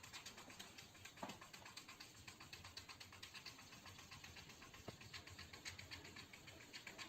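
Near silence: faint room tone with soft, small clicks.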